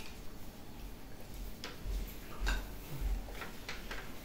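Small handling noises at a kitchen table: a few faint, short clicks and some soft low thumps, with no voices.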